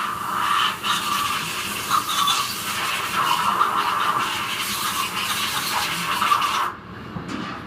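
Hot-water pressure washer spray blasting an ATV cylinder head inside an enclosed wash cabinet: a loud, steady spray hiss that cuts off suddenly near the end as the spray is shut off.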